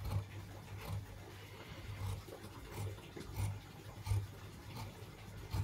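Large tailor's scissors cutting through blouse fabric on a table: a steady series of snips, about one every three-quarters of a second, each with a soft knock.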